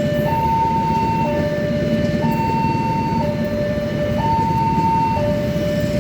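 Railway level-crossing warning siren sounding its two-tone alarm, switching between a high and a low tone about once a second, over a steady low rumble.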